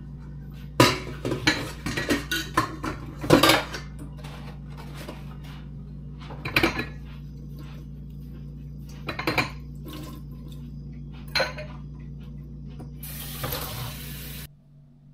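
Dishes and utensils clinking and clattering in a stainless steel sink while being washed by hand: a flurry of knocks in the first few seconds, then single clinks every few seconds. Near the end the faucet's pull-down sprayer runs water for about a second and a half, over a steady low hum that stops with it.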